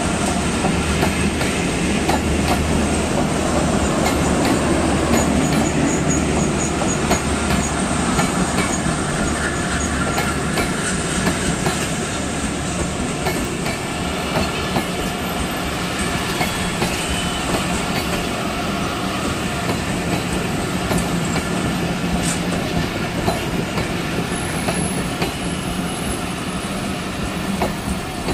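Train of PT INKA passenger coaches rolling past at platform side, wheels clattering over the rail joints, growing gradually quieter.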